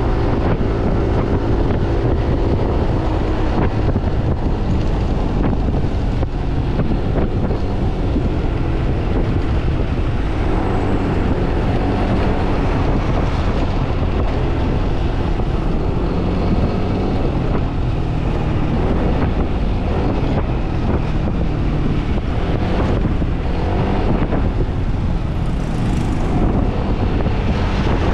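Wind rushing over the action-camera microphone of a Yamaha NMAX scooter riding at road speed, with the scooter's engine and road noise underneath; the sound is steady throughout.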